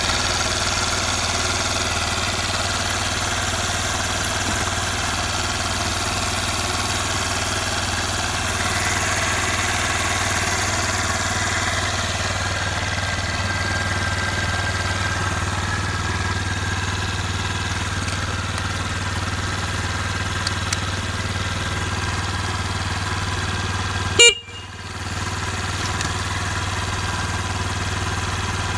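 Honda Benly Pro 50's 50 cc air-cooled single-cylinder four-stroke eSP engine idling steadily, with no abnormal noise. About 24 seconds in, the horn gives one short beep.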